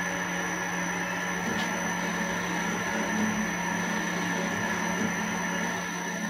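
Metal lathe spindle running steadily at 500 rpm during a CNC threading cycle: a steady hum with a thin high-pitched whine over it.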